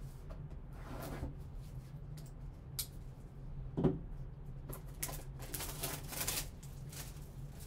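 Handling noises from a trading-card hobby box, with a soft thump about four seconds in. Then comes a burst of crinkling as the plastic shrink-wrap is pulled off the box, over a steady low hum.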